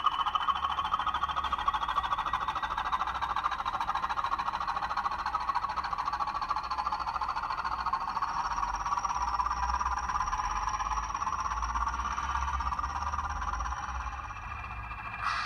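Recorded Class 20 diesel engine sound from a Zimo MX645P22 sound decoder, played through the Bachmann model locomotive's small factory-fitted speaker as the model drives away under power. The engine note slowly rises over the first several seconds, a high thin whine joins about halfway through, and the sound eases off near the end.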